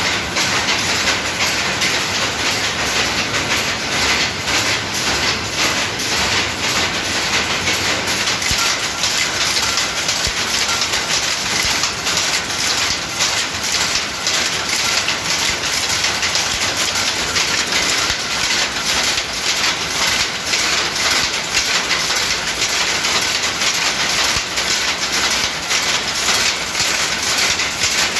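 Power loom running at speed: a loud, steady, rapid mechanical clatter of the loom's repeated weaving strokes.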